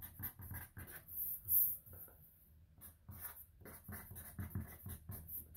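Felt-tip marker writing on paper in short, irregular scratchy strokes, with one louder brief noise about a second and a half in.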